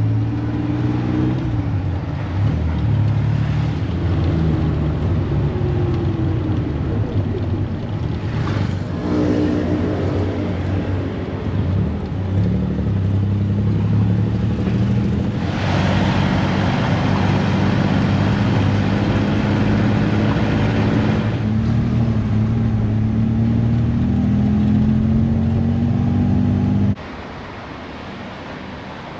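A motor vehicle's engine running steadily, its pitch drifting slowly up and down. Partway through there is a stretch of louder rushing noise, and the sound drops away suddenly near the end.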